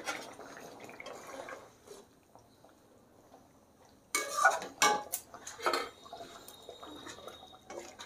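Steel spatula scraping and knocking against a metal kadai as it stirs a thin fish curry, a few sharp scrapes and clinks starting about four seconds in, after a faint wet simmering sound.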